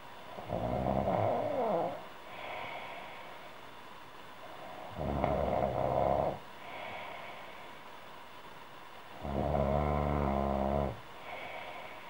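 A woman snoring in her sleep: three loud snores, each about a second and a half long and about four seconds apart, with softer breaths between them.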